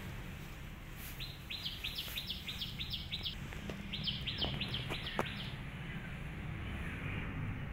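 A bird calling in two runs of quick, evenly repeated high chirps, each run about two seconds long, over a steady low outdoor background.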